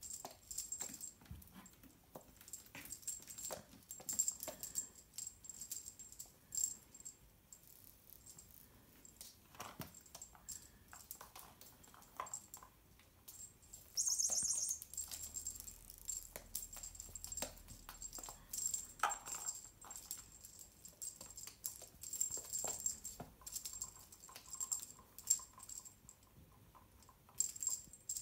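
A Ragdoll kitten playing on a laminate floor: irregular light clicks and taps of its paws and claws on the boards as it scrambles and pounces on a feather wand toy, with a brief jingling rattle about halfway through.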